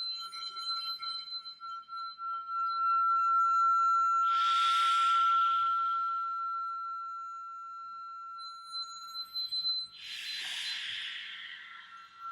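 A sustained high-pitched tone, held steady in the middle and wavering in pulses near the start and end, with two bursts of hiss, about four and about ten seconds in.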